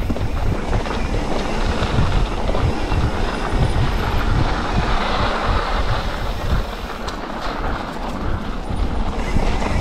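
Continuous rumble and rattle of a mountain bike ridden over a rough trail, with irregular knocks from the tyres and frame and wind on the microphone.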